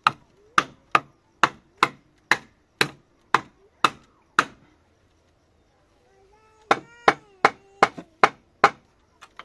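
Steady blows of a hand tool on wood, about two a second. They stop for about two seconds midway, then start again a little faster.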